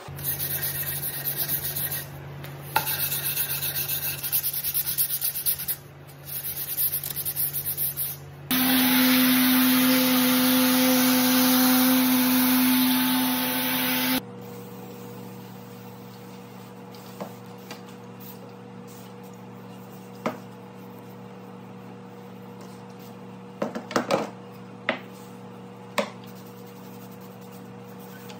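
A router table chamfering the edges of a walnut and purpleheart cutting board, cutting in passes with short breaks between. From about eight seconds in, a random orbital sander runs on the board's face for about six seconds. After that there is a low steady hum with a few light knocks as the finished boards are handled.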